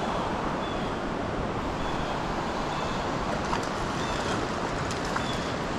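Steady rush of flowing creek water, with faint short high chirps every second or so.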